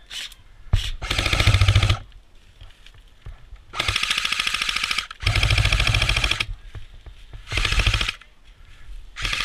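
Airsoft gun firing full-auto, the rapid mechanical rattle of an electric airsoft gun. It fires three bursts of a second or more each, then two short bursts near the end.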